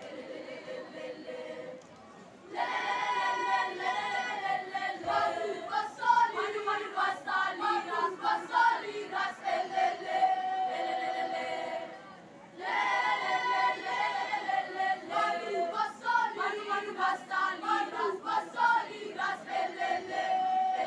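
School choir singing. Each phrase opens with long held chords, breaks into short rhythmic syllables and ends on a held note. The phrase is sung twice, about ten seconds apart, with a brief breath between.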